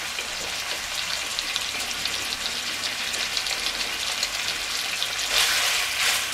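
Chicken strips sizzling in a hot wok, a steady crackling hiss. About five seconds in, a wooden spatula stirs them and the sizzle gets louder.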